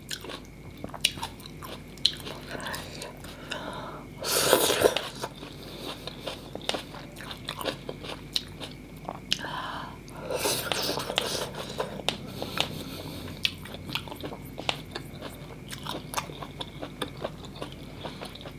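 Close-up eating sounds of mì Quảng noodle soup: wet chewing with many small mouth and utensil clicks. Two longer noodle slurps, about four seconds in and again about ten seconds in.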